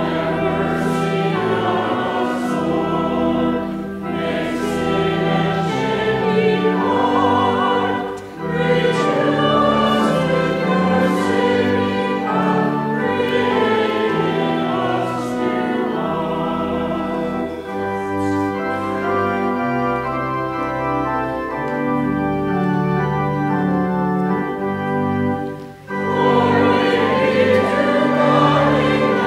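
A congregation singing together, with sustained low accompanying notes, in sung phrases broken by brief pauses between lines about 8 and 26 seconds in.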